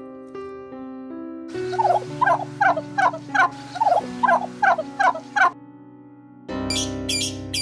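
Soft keyboard music under a bird's call repeated about three times a second for some four seconds, each call a short upward-sliding note. Near the end the music changes and quick high chirps begin.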